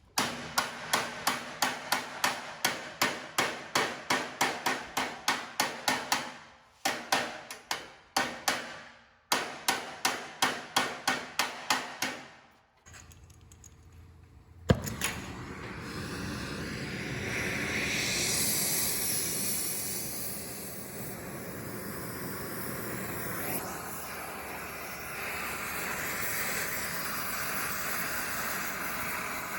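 Blacksmith's hammer striking metal, about three ringing blows a second in three runs broken by short pauses. The blows stop, and after one sharp knock a steady hiss takes over and runs on.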